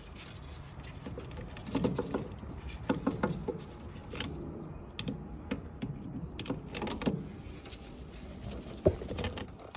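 Socket ratchet tightening a bolt on a car's steering box: irregular clicking in short runs, with metal clinks and knocks from the tool.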